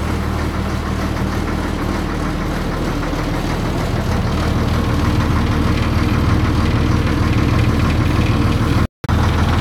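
A Kerala houseboat's engine runs steadily with a deep, even hum. The sound cuts out for a split second near the end.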